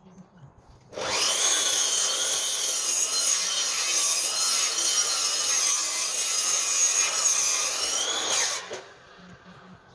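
Makita sliding mitre saw started about a second in, its blade cutting through a timber sleeper for about seven seconds with a steady whine that wavers under load. The saw stops near the end.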